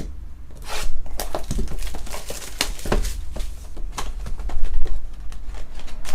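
Trading cards and pack wrappers being handled: a run of irregular quick rustles and clicks over a steady low electrical hum.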